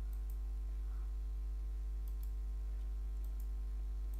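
Computer mouse clicks, four quick pairs like double-clicks, over a steady low electrical hum.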